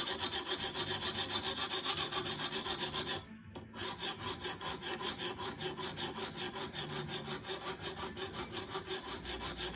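Sharpening stone on a guided knife-sharpening system scraping along a knife's steel edge in quick, even back-and-forth strokes, briefly pausing about three seconds in before resuming. The bevel is being reprofiled.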